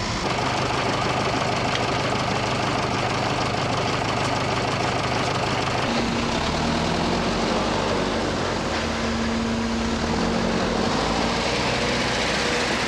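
Tractor engine running steadily as it tows a boat on its trailer. About six seconds in this gives way to a different steady engine note while a motor yacht is lifted by crane in slings.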